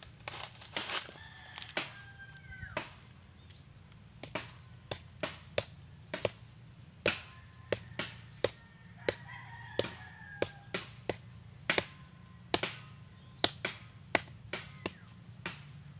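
A bolo knife hacking at nipa palm fruits to open them: a run of sharp chops, about two a second.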